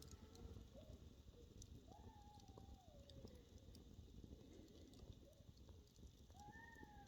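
Near silence with two faint, long bird calls, each gliding downward in pitch, about two seconds in and again near the end.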